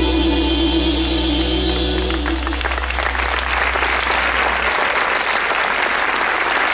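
A live folk band holds its final chord over a sustained low bass note, then audience applause breaks out about two and a half seconds in and continues as the music dies away.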